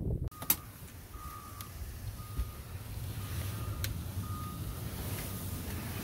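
A vehicle's reversing alarm beeping about once a second, a single high tone, over a steady low engine rumble and hiss.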